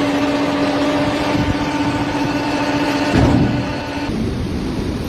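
A machine's motor running with a steady hum over loud rumbling noise, cut off abruptly about four seconds in and replaced by a duller rushing noise.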